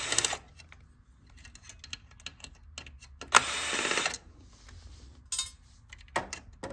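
DeWalt 12-volt cordless drill/driver backing out the motherboard's bottom mounting screws. One short run stops just after the start and a second of about a second comes around three seconds in, with small clicks of screws and handling between.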